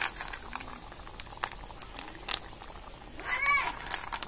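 A cat meows once about three seconds in, a single rising-then-falling call. A few short, sharp clinks come around it, the loudest just after the meow.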